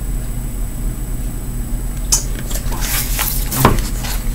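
Picture book being handled and its page turned: a few short rustles and taps, starting about halfway through, over a steady low hum.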